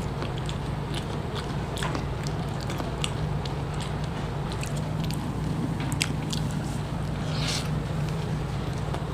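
A person chewing and biting food close to the microphone: irregular small crunches and clicks, over a steady low hum.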